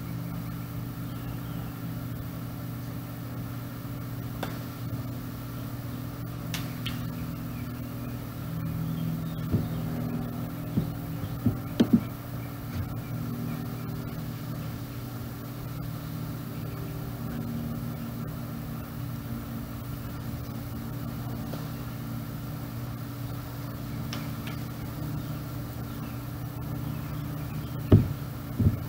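Steady low mechanical hum made of several held tones, with a few sharp knocks about halfway through and two more near the end.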